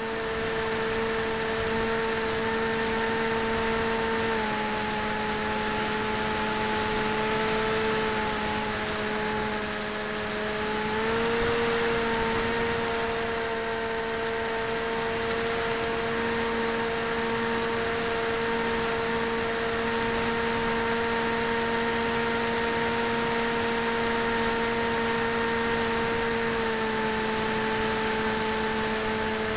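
Model plane's electric motor and propeller running in flight, picked up by the tiny built-in microphone of a keychain camera on the wing: a steady buzzing whine over rushing wind noise. The whine shifts slightly in pitch a few times as the motor speed changes.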